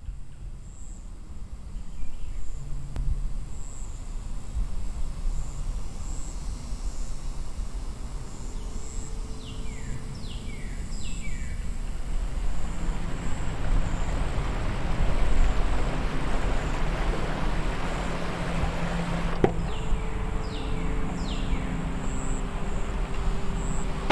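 Outdoor ambience in a film soundtrack: a low rumble that slowly swells, a thin steady high-pitched insect-like whine, and two short runs of three falling, bird-like chirps, one before the middle and one near the end. A low sustained hum joins about halfway, and a single knock sounds about three quarters in.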